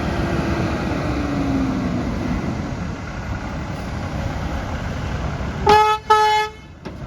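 Truck horn tooting twice in quick short blasts, over the steady running of the truck's engine.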